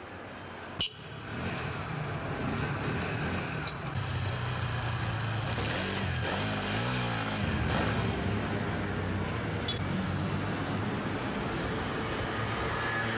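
Motor scooter engines running, their pitch swinging up and down for a couple of seconds midway, after a sharp click about a second in.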